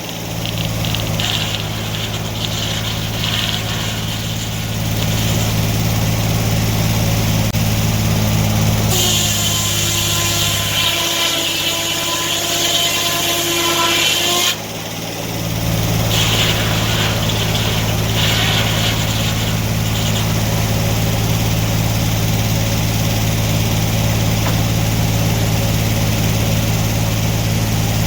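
Portable sawmill's engine running steadily while the blade cuts wood, trimming live edge off mantel boards. A harsher cutting noise rises about nine seconds in and cuts off sharply around fourteen seconds.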